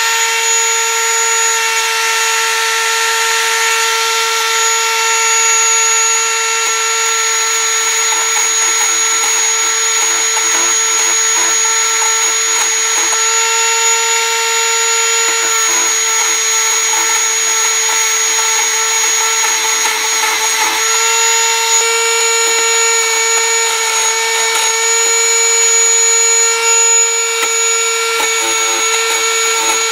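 High-speed rotary tool with a small grinding stone running steadily, a continuous whine, as it grinds the weld built up on the jaws of lineman's pliers to restore their cutting edges. A rougher grinding layer comes and goes under the whine as the stone bears on the metal.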